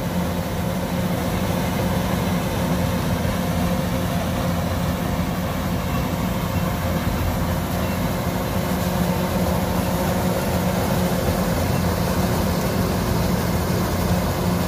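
Kubota DC105X combine harvester running steadily under load, a constant engine drone with a low hum.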